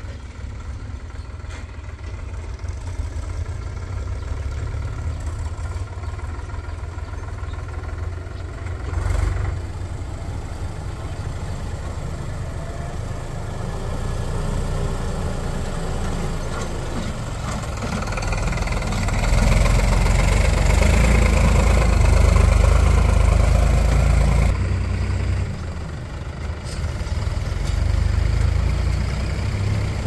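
Diesel farm-tractor engines pulling loaded trailers on a dirt track, a steady low rumble. A Sonalika tractor draws up and passes close, loudest for several seconds about two-thirds of the way through. A Mahindra Yuvo tractor then comes up close near the end.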